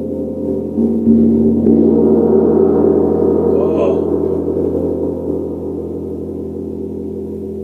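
A two-and-a-half-foot Sabian Chinese gong is struck with a soft fleece-headed mallet, struck again a couple of times in the first two seconds. It rings on in a deep, dark tone with long overtones that slowly fade.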